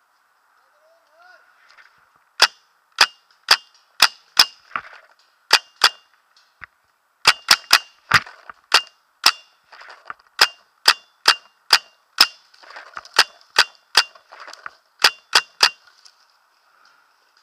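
Paintball marker firing single shots in quick strings: about two dozen sharp pops, roughly two a second, from about two seconds in until near the end, with short pauses between strings.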